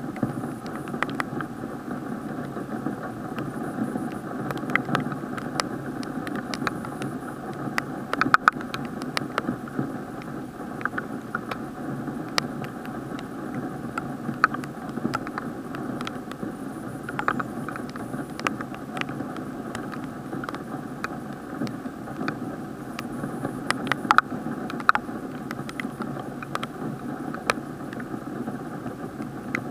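Rain hitting an action camera's sealed waterproof plastic housing: many irregular sharp taps from raindrops over a steady, muffled rain hiss, dulled by the case.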